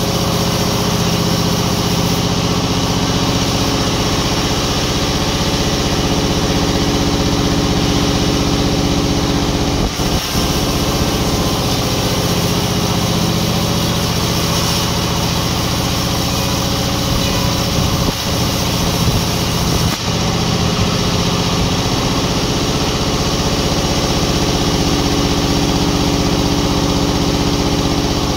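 Sawmill machinery's engine running steadily, with a few brief knocks about ten seconds in and again around eighteen to twenty seconds in.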